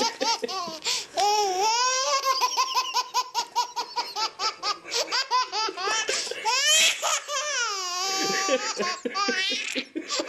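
Baby laughing hysterically in fits of belly laughter: fast strings of high-pitched laugh pulses broken by long rising and falling squeals, one held for over a second about eight seconds in.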